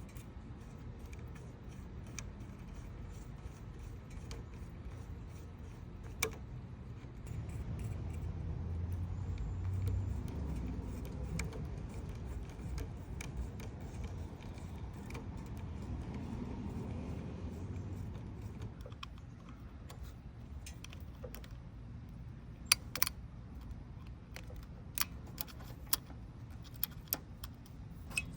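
Hand tools and loose metal parts clinking while bolts are worked off a motorcycle's carburetor. A low rumble swells through the middle, and a few sharp metallic clicks come near the end.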